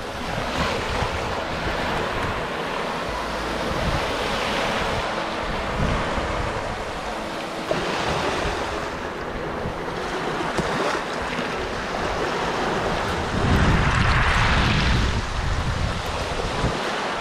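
Waves washing onto a beach, swelling and easing every few seconds, with wind rumbling on the microphone, strongest about three-quarters of the way through.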